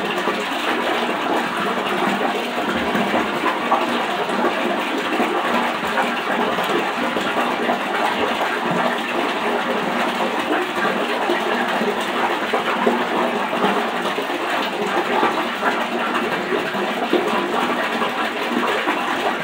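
Water running steadily from a bathroom sink tap while the face is washed.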